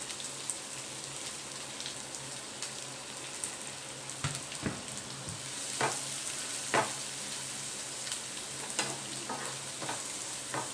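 Raw chopped onions sizzling as they fry in hot oil and ghee in a stainless steel frying pan. Several knocks and scrapes come from a wooden spatula stirring them, mostly in the second half.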